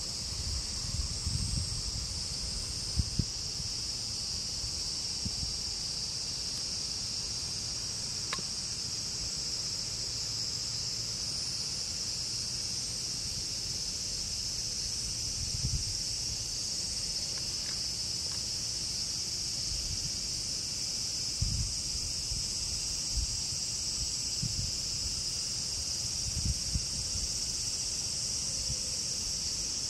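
Steady high-pitched chorus of insects, a continuous unbroken drone, with a few soft low bumps here and there.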